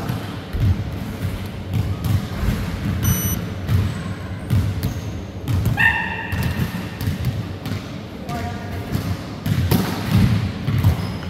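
Thumps and thuds from an indoor volleyball game on a wooden sports-hall floor, from players' footsteps and the ball, with one sharper smack just before the end. Short calls from players come about halfway through and again a couple of seconds later.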